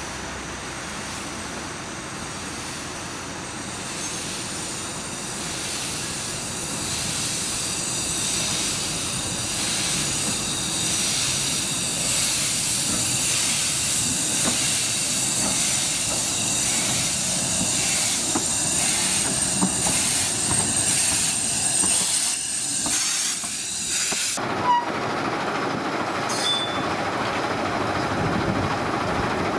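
Narrow-gauge steam tank locomotive No. 762 'Lyn' moving slowly alongside, hissing steam at its wheels with a regular pulsing beat, growing louder as it draws near. Near the end the sound cuts abruptly to a more distant, even rail-yard sound.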